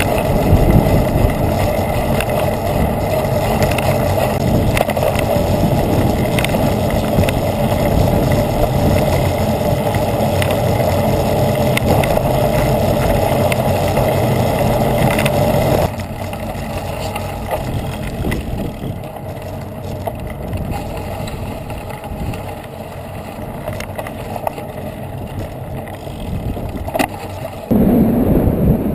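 Steady engine and wind noise from the moving motor vehicle carrying the camera. The noise drops suddenly about halfway through and comes back louder near the end.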